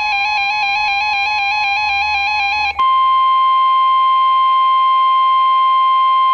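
Weather radio alert: an electronic two-pitch warbling alarm, which about three seconds in gives way to the steady, loud 1050 Hz NOAA Weather Radio warning alarm tone announcing a warning.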